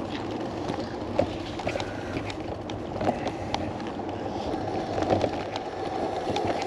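Bicycle rolling along, a steady rumble of tyre noise with scattered clicks and rattles.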